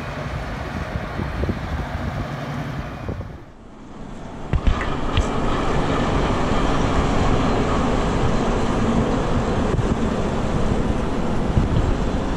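Steady heavy-machinery rumble with a low hum at a dam construction site; after a cut about three and a half seconds in, a louder, rougher steady noise with wind on the microphone and a couple of sharp knocks.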